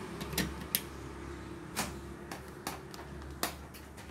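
Light clicks and taps, about half a dozen spread irregularly, from objects and the phone being handled and set down, over a steady low hum.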